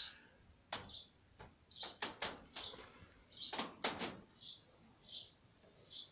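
A small bird chirping over and over, one short high chirp a little more often than once a second. Several sharp clicks or knocks come in the first four seconds, the loudest two close together near four seconds in.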